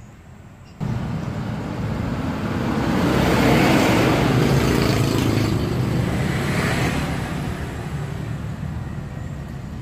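An engine running: it cuts in abruptly about a second in, grows louder toward the middle and then slowly fades.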